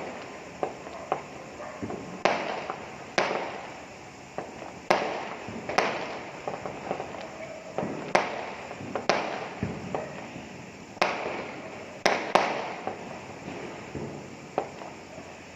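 Fireworks going off: an irregular series of sharp bangs, roughly one a second, each trailing off briefly, with smaller crackling pops in between.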